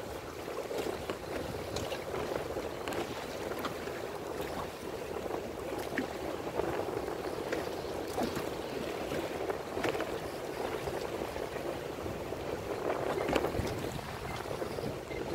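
A small fishing boat under way: a steady rush of water and wind, with a few light clicks and knocks.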